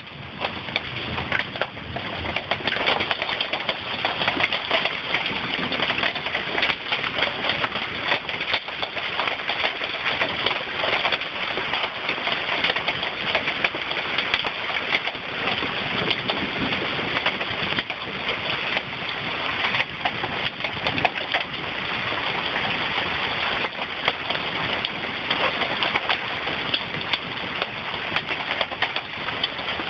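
Heavy rain falling steadily: a dense hiss made of countless fine drop hits.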